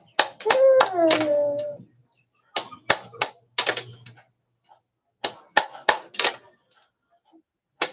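Hammer tapping a nail or punch through a thin metal sheet on a wooden board, punching grater holes: sharp metallic taps in quick clusters of two to five. About half a second in, a brief wavering cry rises over the first taps.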